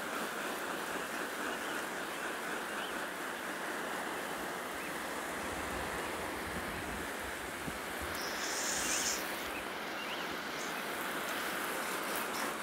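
Fine water spray hissing steadily as it falls on garden plants, soil and a wooden fence, with a brief sharper, higher hiss about eight seconds in.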